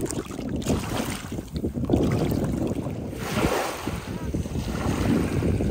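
Small lake waves lapping and washing over a pebble shore, with wind buffeting the microphone in a low, uneven rumble. A wave washes in with a brighter hiss about three seconds in.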